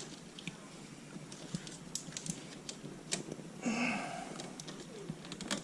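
Scattered clicks and light ticks of hands working plastic trim and wiring, with one short pitched sound about four seconds in.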